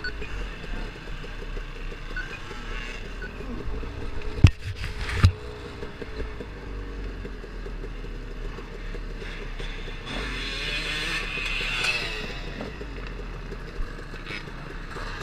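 KTM 250 XC-W two-stroke dirt bike engine running at low speed, with two sharp knocks a little under a second apart, about four and a half seconds in.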